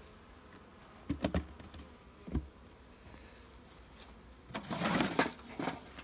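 Honeybees buzzing around an open hive, with a few wooden knocks as hive parts are set in place, a little over a second in and again near two and a half seconds. A louder scraping rustle of wood being handled comes about five seconds in.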